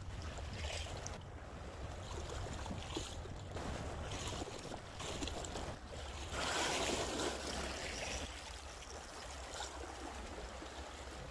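Sea water washing against shore rocks, with one louder surge of wash about six seconds in, over a steady low rumble of wind on the microphone.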